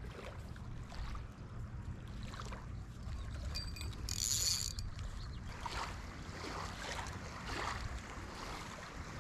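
Quiet handling noises of a fishing rod and line being fiddled with by hand, faint rustles and ticks over a low rumble of wind on the microphone. A brief high-pitched sound stands out about four seconds in.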